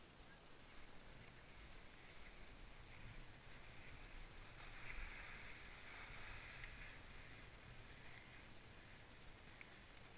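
Faint scraping hiss of skis sliding over groomed snow, swelling a little in the middle.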